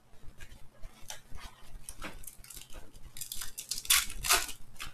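A trading card pack's wrapper crinkling and tearing open in the hands, in a run of short crackles that are loudest from about three seconds in.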